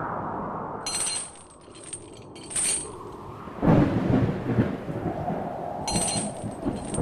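A thunderclap about three and a half seconds in, rumbling on to the end, with a few short bright high clinks before it and again near the end.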